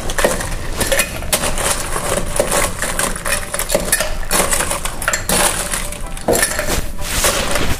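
Ice cubes being added to a cut-glass mixing glass: a dense run of clinks and clatters, with several louder pours as the glass fills.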